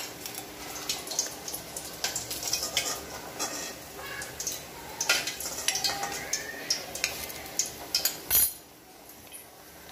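Hot oil crackling and spitting as mutton meatballs deep-fry, with a steel ladle clinking against a steel bowl as the fried balls are set down. A loud clack comes near the end, and it is quieter after that.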